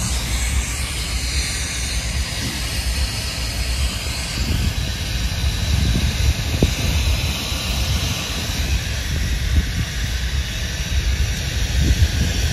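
Steady low rumble with an even hiss, the ambient drone of diesel locomotives idling in a rail yard.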